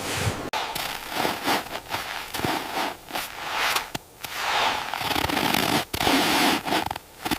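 Crackling and scratching noise with many sharp snaps, broken off abruptly several times.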